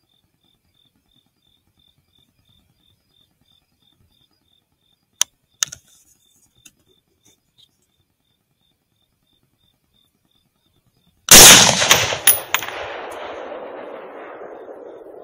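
A single rifle shot, very loud and sudden, recorded right at the gun, followed by an echo that rolls away and fades over about four seconds. About six seconds before it come two sharp clicks half a second apart.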